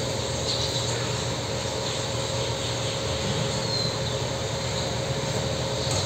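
Steady droning hum and hiss with a faint constant whine, unchanging throughout, with no distinct clicks or knocks.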